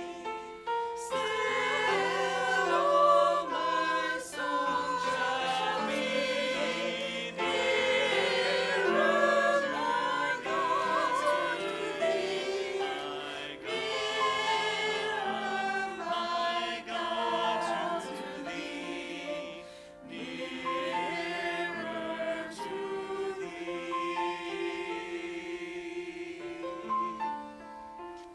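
Congregation singing a hymn in unison over sustained keyboard accompaniment; the voices drop away near the end, leaving the held accompaniment notes.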